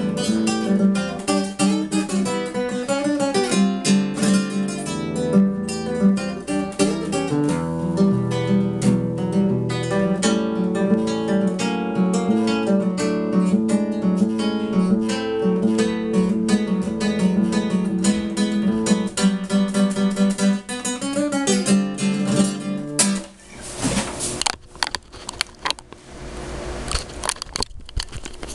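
Acoustic guitar music, plucked and strummed. About 23 seconds in the music stops, leaving scattered clicks and rustling.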